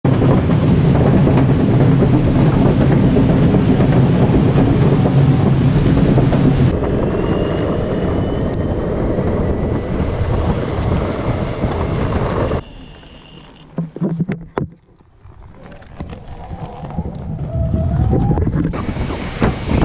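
Wind rushing over the microphone and the wheels of a Boosted electric skateboard rolling on pavement at speed. The noise drops off sharply about two-thirds of the way through, a few sharp knocks follow, and it builds back up near the end.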